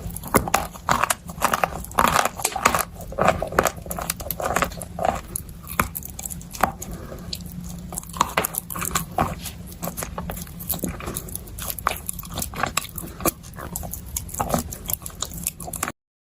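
Close-miked ASMR eating of chalk dipped in wet clay paste: repeated crisp bites and crunching with chewing in between, stopping abruptly near the end.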